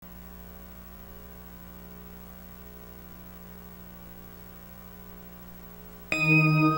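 Steady low electrical mains hum on the audio line. About six seconds in, bell-like ident music starts suddenly and much louder, with several ringing tones held together.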